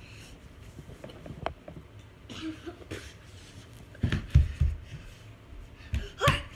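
Muffled thumps and rustling of a phone lying on a couch cushion being bumped and jostled, heaviest about four seconds in and again near the end, with a few light clicks between.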